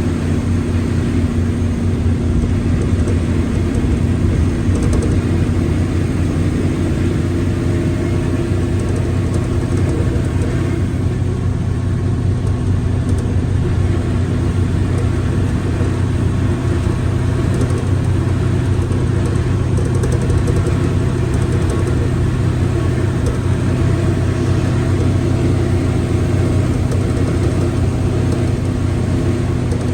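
Mercedes-Benz OF1721L BlueTec 5 bus running steadily, an even drone that holds one pitch, with the gearbox growling.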